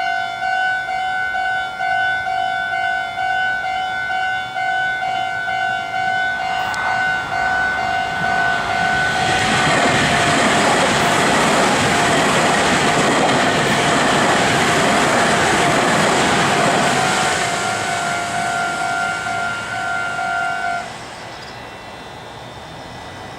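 Japanese level-crossing warning bells ringing in a steady rapid pulse while a Meitetsu train passes over the crossing. The rush of the train is loudest in the middle. The bells stop about three-quarters of the way through.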